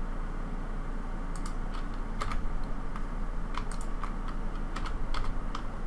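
Computer keyboard keys and mouse clicks tapping at irregular intervals, entering Blender shortcuts, over a steady low hum.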